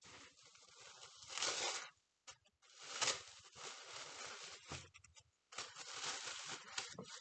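Tissue paper crinkling and rustling as hands pull it open around a wrapped parcel, in three stretches of rustling with short pauses between.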